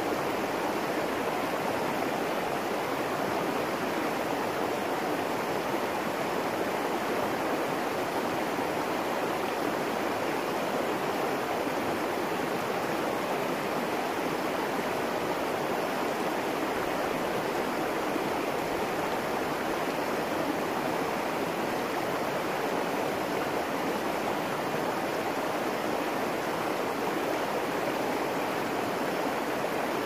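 Flowing water rushing steadily and evenly, with no breaks or separate splashes.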